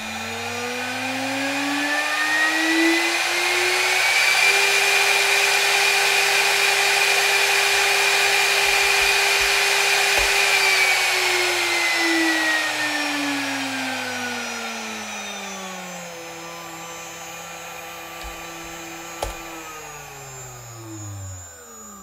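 A 1.5 kW air-cooled GDZ-80 spindle driven by a frequency inverter. Its whine and cooling-fan rush rise over the first few seconds as it speeds up from 12,000 to 24,000 rpm, and it runs steadily at full speed. About halfway through it slows to 10,000 rpm, and near the end it winds down to a stop with a falling whine.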